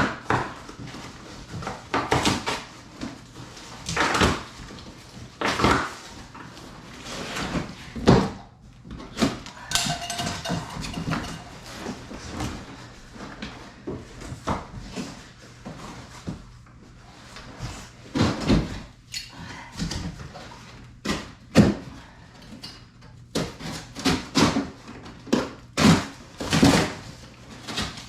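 Cardboard box being opened and unpacked: irregular rustling, scraping and knocks of packaging and parts being handled, busiest near the end.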